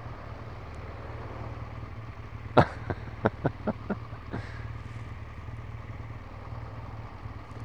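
Motorcycle engine running steadily. About two and a half seconds in there is one sharp knock, then a quick series of about five shorter clicks.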